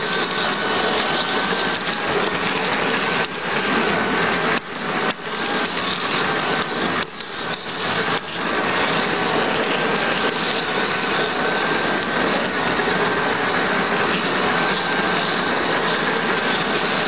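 Large-scale garden model train running along its track, heard from a camera riding on it: a steady rolling rumble of wheels on rail with a faint whine from the drive motor and gears, dipping briefly several times in the first half.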